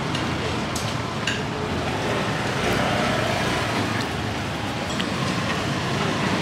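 Steady street background noise with passing traffic, and a few light clicks about a second in and near the middle.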